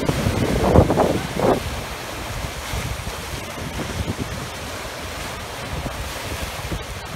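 Ocean surf breaking and washing over a coral reef shore, with wind buffeting the microphone in strong gusts during the first second or two, then a steady rush of water and wind.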